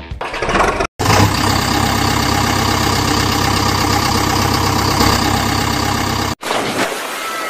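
Engine sound effect laid over the footage, a vehicle engine running steadily. It cuts off abruptly about a second in and restarts at once, then breaks off near the end into a quieter stretch.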